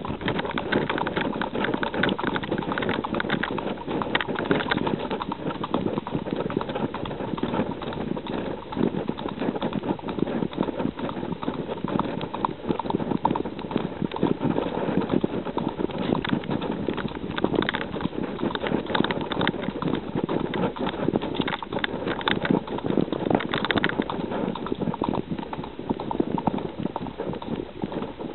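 Horse cantering and galloping on a dirt trail: rapid, continuous hoofbeats heard from the saddle.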